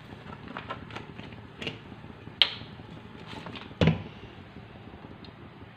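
Light clicks, a sharp tap and then a heavier knock with a low thud, just before four seconds in, from things being handled around a kadai on the stove, over a steady low hiss.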